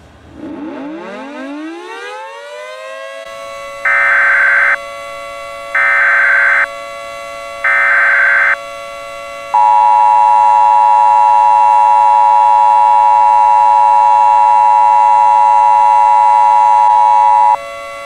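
A civil defense siren winds up over about three seconds and holds a steady wail. Over it come three short bursts of EAS SAME header data, then the Emergency Alert System two-tone attention signal, held for about eight seconds before it cuts off near the end.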